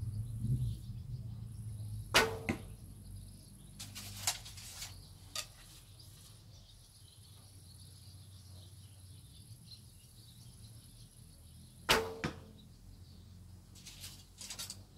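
A Kaiser Kyrenia 40 lb traditional recurve bow is shot twice, about ten seconds apart. Each release is a sharp string slap with a short twang. A few fainter clicks come in between and near the end.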